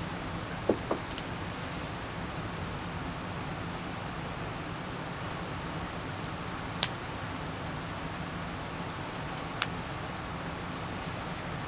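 A mug set down on a wooden bench, two light knocks about a second in, over a steady even hiss. Two sharp ticks come later.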